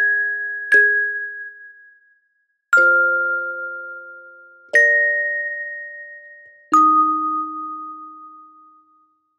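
Slow, sparse music of bell-like struck tones: a new chord of a few ringing pitches sounds about every two seconds and fades out, four strikes in all, the last dying away near the end.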